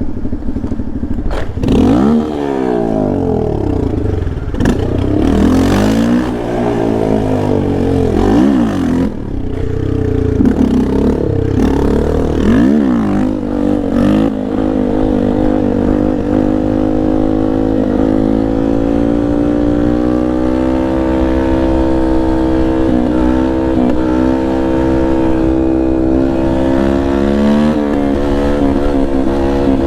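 Yamaha Lander 250's single-cylinder four-stroke engine under hard riding. For the first half it revs up and falls off repeatedly through quick gear changes. From about halfway on it pulls steadily, its pitch climbing slowly.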